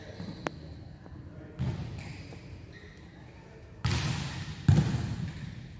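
Volleyballs being struck and bouncing off a hard court floor in a large hall: a sharp click, then several heavier smacks that echo, the loudest about three quarters of the way through.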